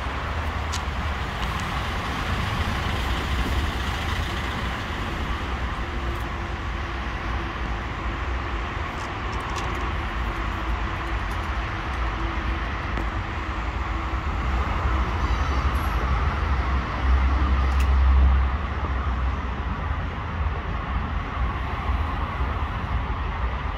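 Steady road traffic noise with a low rumble, swelling briefly as a vehicle passes about three-quarters of the way through.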